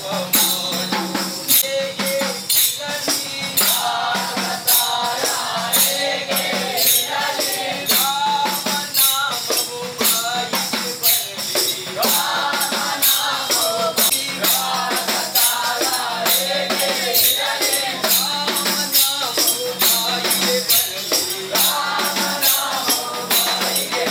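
A group of men singing a devotional song together in chorus, over a steady jingling percussion beat kept up as they dance in a circle.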